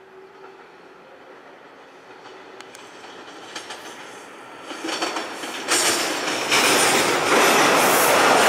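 Toronto TTC T1 subway train approaching over switches into a station: wheel-on-rail noise that starts faint and grows much louder in the second half.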